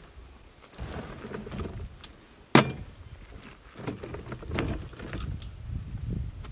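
Poly-bed dump cart being emptied and righted: its tipped bed drops back onto the frame with one sharp clunk about two and a half seconds in, then the empty cart rattles and rumbles as it is pulled over rough dirt and gravel, with footsteps.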